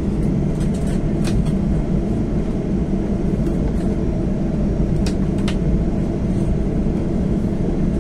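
Cabin of a jet airliner taxiing before takeoff: the engines and airframe make a steady low rumble, with a few brief faint clicks.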